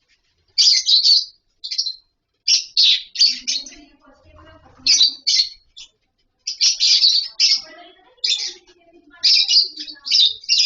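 Lovebirds chirping and squawking in shrill, rapid bouts of calls, about half a second to a second each, with short pauses between.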